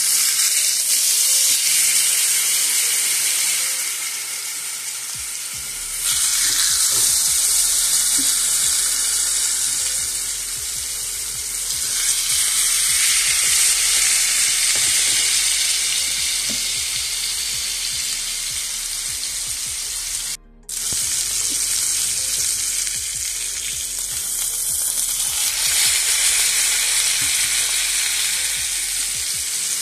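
Seasoned pork chops sizzling loudly in hot oil in a nonstick frying pan as they sear, the sizzle swelling and easing in waves. It cuts out for a moment about twenty seconds in.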